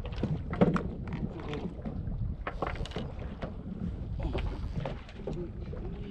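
Wind on the microphone and water slapping a small wooden boat at sea, with irregular knocks and clicks from the boat and fishing gear, the sharpest about half a second in.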